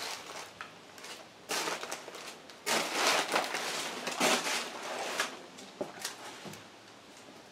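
Footsteps crunching and crackling over broken wood and debris on a rotting, spongy floor, in two stretches: a short one, then a longer, louder one about three seconds in.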